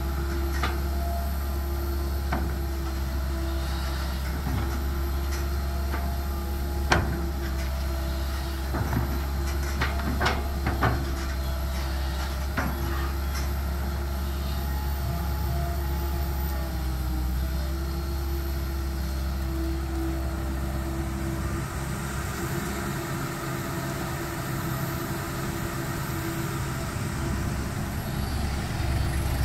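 Tracked excavator's engine running steadily with a constant whine from the hydraulics, and a few sharp knocks between about 7 and 13 seconds in. The low engine drone eases about two-thirds of the way through.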